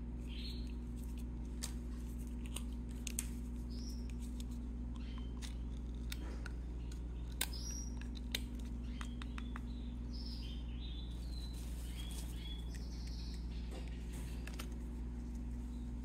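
Baby birds giving many short, high chirps, scattered through, over a steady low hum. Sharp clicks of a plastic feeding syringe and cup being handled come in between, the loudest about three, seven and eight seconds in.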